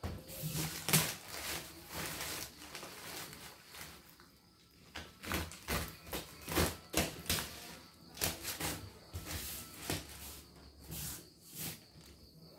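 Plastic packing film and tape crinkling, tearing and scraping as a wrapped parcel is cut open with a utility knife and the film is pulled off. The sound comes as a series of short, irregular rustles and scrapes.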